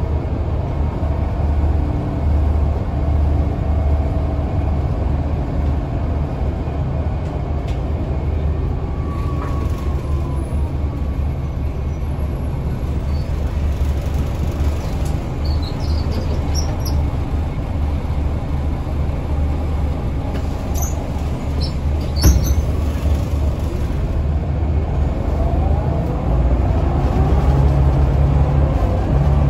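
A Scania L94UA articulated bus heard from inside the cabin while under way: the engine and drivetrain run with a steady low drone. Its pitch falls at the start, then rises again near the end as the bus speeds up. Faint high squeaks and rattles come from the interior, with one sharp knock about two-thirds of the way through.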